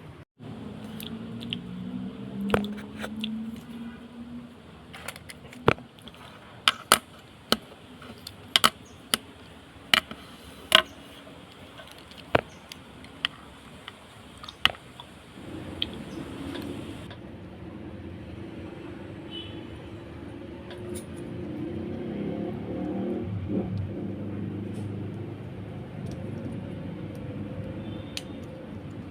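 Sharp clicks and knocks of blender parts being handled during a repair, about a dozen over several seconds, followed in the second half by a steadier low hum.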